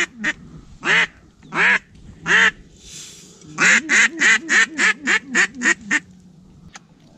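Loud mallard-style quacking in a steady rhythm: four spaced single quacks, then a fast run of about eight quacks at roughly four a second that stops about six seconds in.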